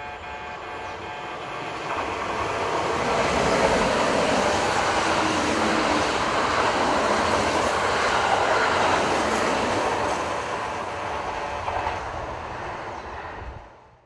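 Kintetsu limited express train running through the station at speed. Its rushing wheel-and-rail noise builds up over the first few seconds, holds steady while the cars pass, then eases off and cuts off abruptly at the end.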